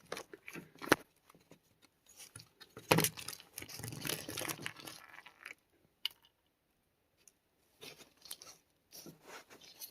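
Hands handling a BB-riddled potato target: scattered sharp clicks and knocks, with a stretch of scraping and rustling from about three to five and a half seconds in.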